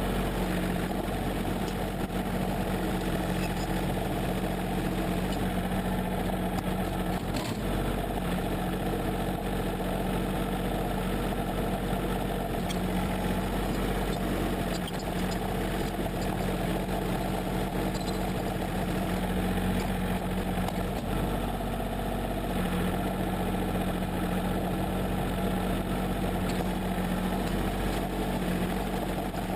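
John Deere 770 compact tractor's three-cylinder diesel engine running steadily at an even pitch while the tractor pushes snow with its front loader bucket.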